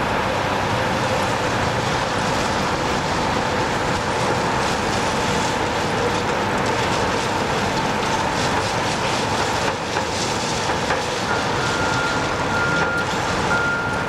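Heavy track-maintenance machinery running steadily: a rail tamper, then a wheel loader tipping ballast. Near the end a reversing alarm beeps repeatedly.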